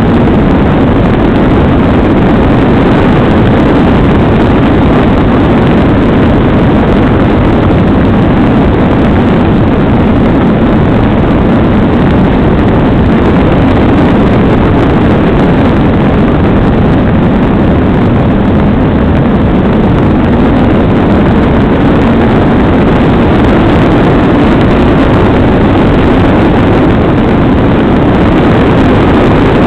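Airflow rushing over a small camera mounted on the wing of a radio-controlled glider in flight: a loud, steady, unpitched rush of wind noise on the microphone.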